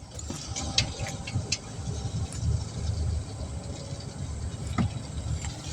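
Scattered light clicks and clinks of hand tools on metal during brake reassembly, over a steady low rumble.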